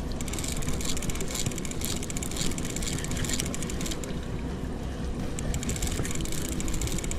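Large conventional fishing reel clicking rapidly as its handle is worked, over the steady low rumble of the boat under way with its outboard running.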